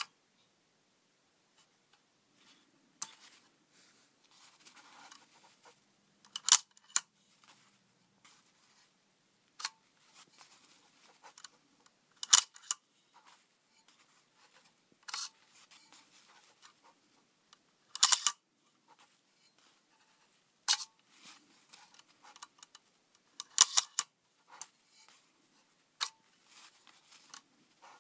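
Leaf shutter of a Polaroid 88-17 CU-5 macro lens being fired by hand over and over, about ten sharp mechanical clicks a few seconds apart, some of them doubled. Faint handling and ring-turning sounds come between the clicks.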